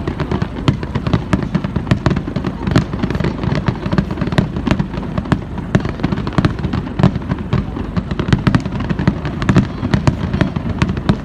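Fireworks display bursting in rapid, continuous succession: many overlapping bangs and sharp cracks over a steady low rumble.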